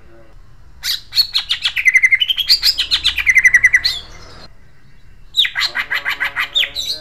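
Cucak ijo (green leafbird) singing its harsh, sharp rolling song in two fast bursts of rapid repeated notes, about eight a second. The first burst starts about a second in and slides down in pitch, then climbs back up. After a pause of about a second and a half, the second burst comes near the end.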